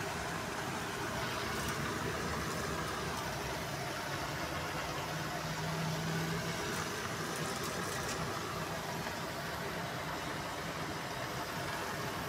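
Steady sizzling of papaya leaves and tempeh stir-frying in a nonstick pan, over a low steady hum, with a few faint ticks.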